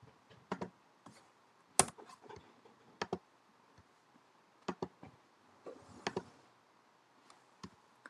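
Computer mouse buttons clicking: a run of sharp, faint clicks, mostly in quick pairs like double-clicks, with the sharpest single click about two seconds in.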